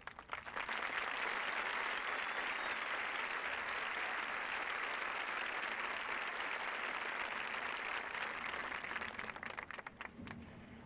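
Large crowd applauding steadily, thinning out to scattered claps near the end.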